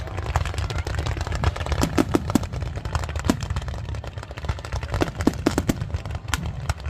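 Fireworks bursting: an irregular rapid string of sharp cracks and pops over a steady low rumble.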